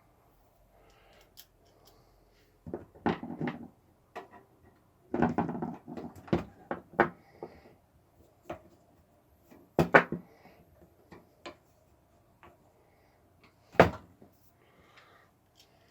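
Computer parts being handled and fitted into a desktop PC case: irregular clicks, knocks and rattles of metal and plastic, with short bursts of handling and sharp single clicks about ten and fourteen seconds in.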